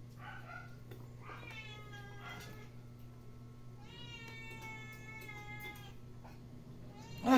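Puppy whining: a few short, high, falling cries, then one long drawn-out whine about four seconds in.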